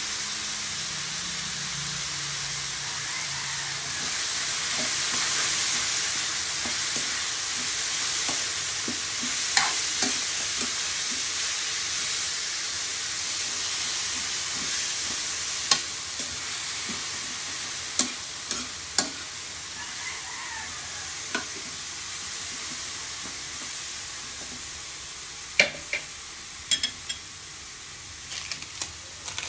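Sliced bitter melon sizzling in an aluminium wok over a gas burner while a spatula stirs it, knocking and scraping against the pan every few seconds. The sizzle slowly quietens over the second half.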